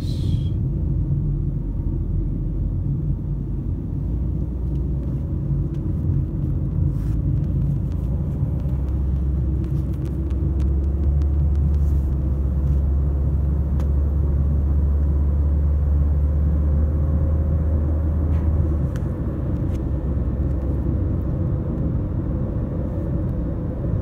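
Car driving on a highway, heard from inside the cabin: a steady low rumble of road and engine noise, with a stronger low drone from about eight seconds in until about nineteen.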